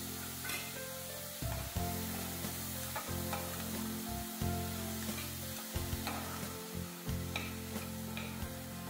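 Steel spatula stirring and scraping chopped onions and ginger-garlic paste frying in oil in a pressure cooker pan: a steady sizzle with repeated scraping clicks against the pan. Soft background music with held low notes plays underneath.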